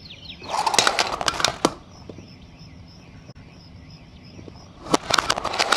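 Die-cast toy car rolling fast across a hard floor, its wheels rattling and clicking, ending in a sharp knock as it hits the small toy cart about a second and a half in. A second burst of rattling and clicks comes near the end, over faint repeated bird chirps in the background.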